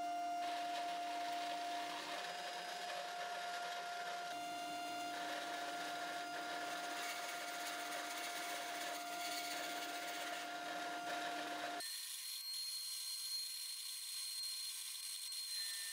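Bandsaw running steadily while short wood-and-resin dowel pieces are cut to equal length in a jig on the miter gauge. About twelve seconds in, the sound suddenly loses its low hum and turns to a thin, high hiss.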